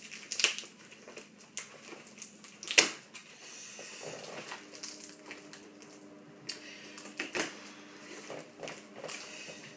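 A large cardboard box being handled: scuffs and rubbing on the cardboard with several sharp knocks, the loudest about three seconds in. Near the end a knife starts working at the packing tape.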